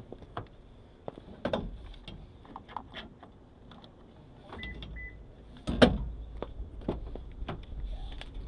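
Pickup truck door being opened: scattered clicks and handling knocks, two short high beeps a little under five seconds in, then a loud clunk of the door latch at about six seconds.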